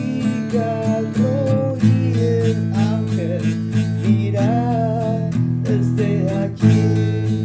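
Music: strummed acoustic guitar chords with a wavering melody line above them, the chords changing a few times.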